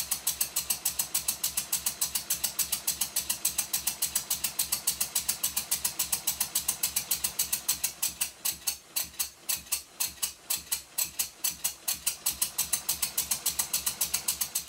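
Stuart Twin Victoria model twin-cylinder mill engine running on compressed air, its exhaust puffing in quick, very even beats, several a second. The valve timing is set about right.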